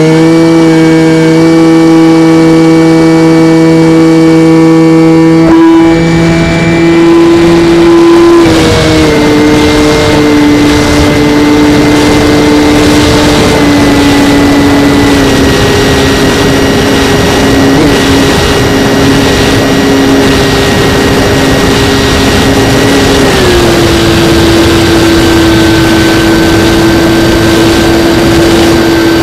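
Skywalker X-8 flying wing's motor and propeller, heard from the onboard camera. It gives a steady whine that steps down in pitch several times, about a third of the way in, around halfway and again near the end. From about a third of the way in, rushing wind noise grows over it.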